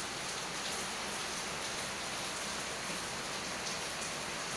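A steady, even hiss with nothing standing out of it.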